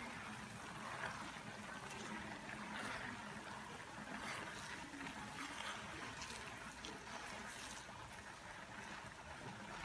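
Coconut milk boiling down in a pan, a steady bubbling sizzle with faint crackles, as it is stirred with a silicone spatula. This is the cooking-down stage of making coconut oil, when the oil separates and the latik curds form.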